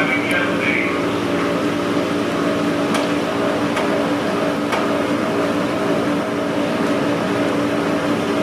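Diesel engine of a 2008 Seagrave Marauder II fire engine idling steadily, with a few faint clicks about three to five seconds in.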